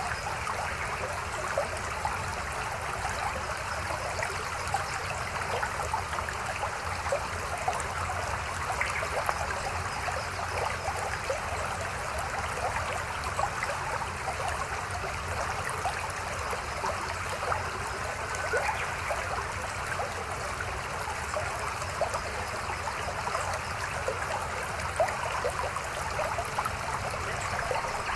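Mountain stream babbling over rocks: a steady rush of water flecked with many small splashes and trickles.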